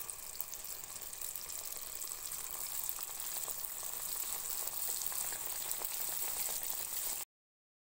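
Baursak dough rounds deep-frying in hot oil in a pan: a steady sizzle with fine crackling that grows a little louder as more pieces go in. It cuts off abruptly near the end.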